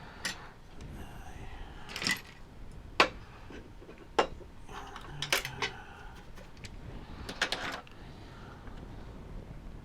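Small parts and tools being handled on a workbench: a string of separate clicks and knocks, about seven in all, with the sharpest about three seconds in.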